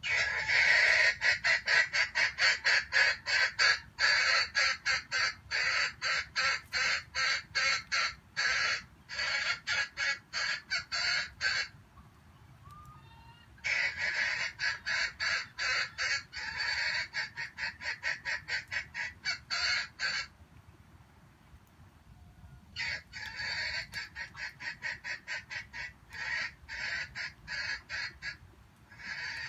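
Junglefowl calling in rapid repeated clucks, about three or four a second, in three long runs broken by pauses of about two seconds.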